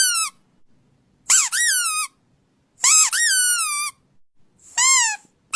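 Rubber squeaky dog toy squeezed over and over. It gives three long squeaks after the tail of an earlier one, about one every one and a half seconds, each jumping up in pitch and then sliding down.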